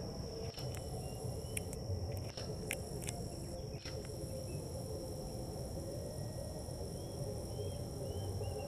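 Steady high-pitched drone of insects such as crickets over a low outdoor rumble, with a few faint clicks in the first half and a few faint short chirps near the end.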